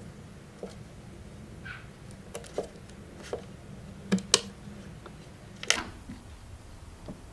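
Scattered light clicks and taps of tools and mount parts being handled, the loudest two about four and a half and six seconds in, over a low steady hum.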